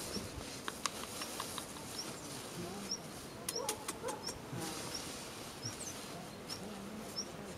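A bird repeats a short, high chirp about twice a second. It sounds over the crackling and rustling of a plastic bag being handled, with bursts of sharp crackles about three and a half to four and a half seconds in.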